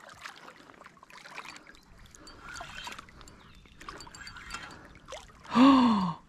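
Faint water splashing and trickling at the surface while a hooked pike is fought at close range, then near the end a man's loud, drawn-out exclamation that falls in pitch.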